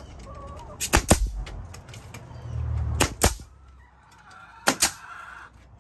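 Pneumatic nail gun firing nails into a pine board. The shots come as sharp cracks in quick pairs: one pair about a second in, one at about three seconds, one near the end. Chickens cluck faintly in between.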